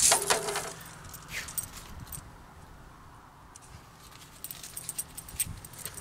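Steel tape measure being pulled out and laid along a 2x4 board, with a metallic rattle at the start. Scattered light clicks follow near the end.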